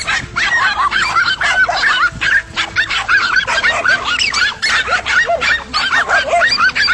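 Dogs barking and yelping excitedly in a rapid, overlapping string of high yaps that never lets up.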